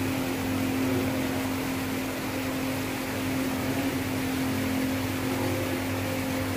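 Steady mechanical hum of a fan or motor: one constant low tone over an even hiss, unchanging throughout.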